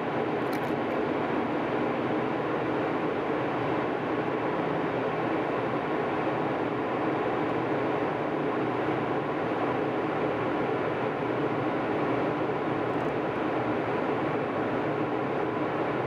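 Steady jet airliner cabin noise in flight: the even rush of engines and airflow heard from a window seat, unchanging throughout, with a faint steady hum.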